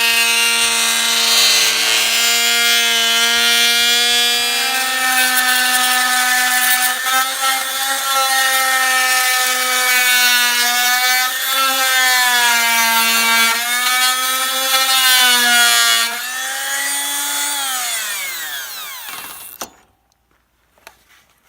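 Electric power saw running at a steady pitch, dipping briefly several times as it cuts. About sixteen seconds in it is switched off and winds down with a falling whine, stopping near the end.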